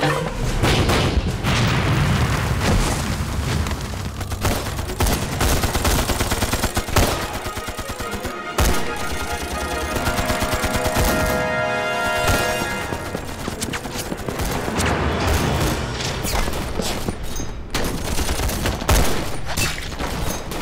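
Battle sound effects: dense rifle and machine-gun fire, shot after shot, mixed with a dramatic film score.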